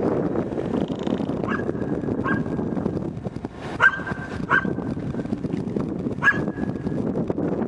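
A dog barking: five short barks, mostly in pairs, the loudest about four seconds in, over steady background noise.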